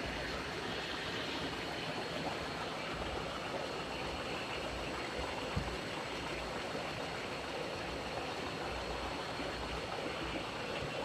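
Bobst Vision Fold folder-gluer running: a steady mechanical rush of belts, rollers and motors with a faint high whine, and a single knock about five and a half seconds in.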